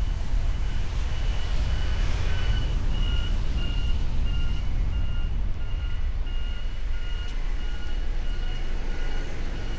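Electronic warning beeper repeating a short high beep about one and a half to two times a second, over a steady low rumble of road traffic.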